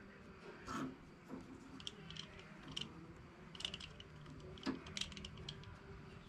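Faint, irregular small metallic clicks and taps of a socket tool and metal fittings being worked at a small tractor's diesel injection pump.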